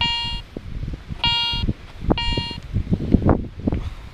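Garrett ACE 300 metal detector beeping as its coil sweeps over a buried metal target: three short, identical beeps about a second apart, the signal of a detection. Irregular low knocks and rustling sit underneath.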